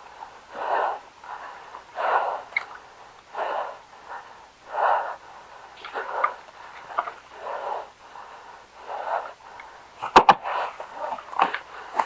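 A player's heavy breathing close to the microphone, about one breath every second and a half. Near the end there is a short burst of rapid airsoft gunfire.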